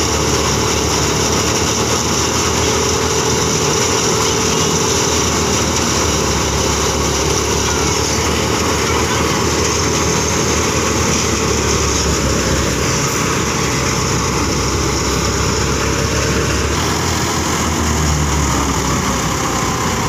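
Tractor-powered wheat thresher running while wheat sheaves are fed into it: a loud, steady machine din of the threshing drum and the tractor's diesel engine.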